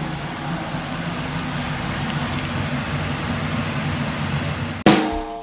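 A steady hum and hiss of background noise runs without change. Near the end, music with a steady beat starts abruptly.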